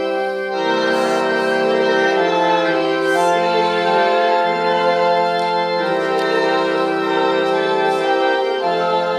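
Organ playing slow sustained chords of a hymn, the chords changing every second or two.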